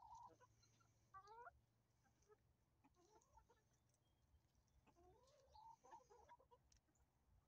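A flock of hens clucking quietly as they feed, in a few short bursts of calls: near the start, about a second in, and again around five to six seconds in.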